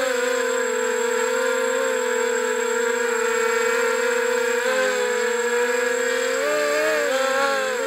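FPV quadcopter's electric motors and propellers whining, heard from the onboard camera. The pitch holds steady, then wavers up and down from about five seconds in.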